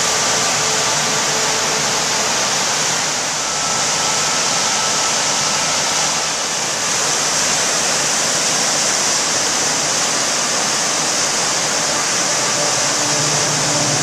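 River rapids rushing steadily over rocks, a loud, even noise of white water.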